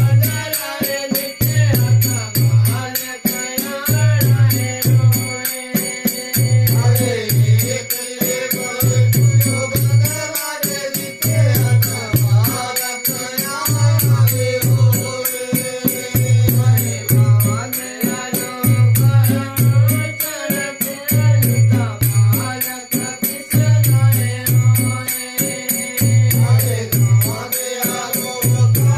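Devotional folk song to Guga Jahar Pir: men's voices singing to a hand-played two-headed barrel drum, over a fast continuous jingling rattle of hand percussion. The drum's deep strokes come in a steady repeating pattern, a cluster about every two seconds.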